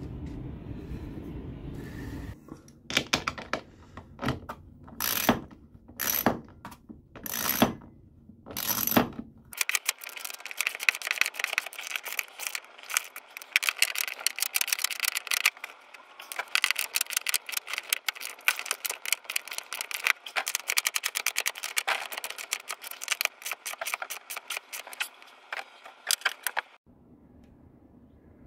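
A socket wrench ratchet clicking fast and continuously while tightening the nuts on a stainless stanchion base's through-bolts from under the deck, then stopping suddenly near the end. Before the long run, about eight separate sharp clicks come roughly a second apart.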